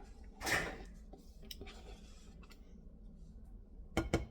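Kitchen handling sounds: a short scrape about half a second in, then a couple of light clicks near the end.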